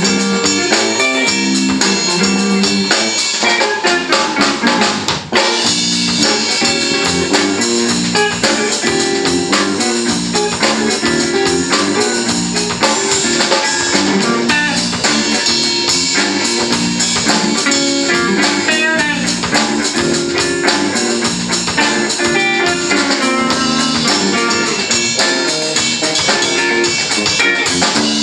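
Live band playing a funk-jazz instrumental: electric guitars, electric bass and drum kit together, with a repeating bass line under the guitars.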